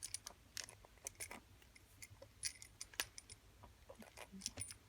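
Faint, irregular small metallic clicks and scrapes as a hard metal tube tool is twisted clockwise onto the threaded post of a pair of vintage Darby handcuffs, working it tight.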